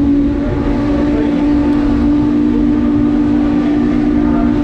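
Norfolk & Western 611's steam whistle blowing one long, steady chord of several low tones, heard from inside a passenger coach over the rumble of the moving train.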